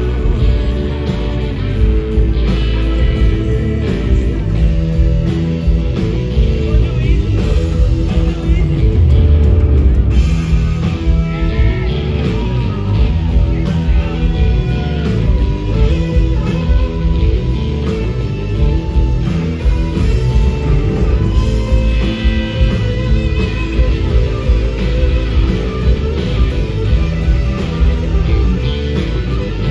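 Live blues-rock band playing an instrumental passage: electric guitars over bass guitar and drums, loud and steady throughout.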